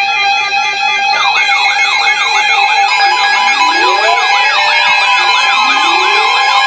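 Emergency vehicle sirens: a steady tone, then a fast yelp from about a second in, joined by rising wails, several sirens sounding over each other.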